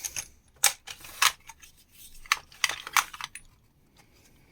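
Loose metal screws and nails clicking and clinking as they are picked through by hand: a string of sharp, irregular clicks for about three seconds, then it goes quiet.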